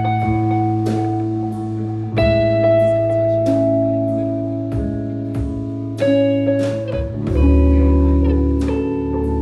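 Live rock band playing a slow song: held guitar chords over steady drum hits, with a deep, loud bass note coming in about seven seconds in.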